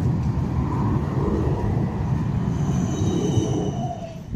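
Tram running on its rails: a steady low rumble, with a faint high squeal joining in the second half. The sound stops abruptly near the end.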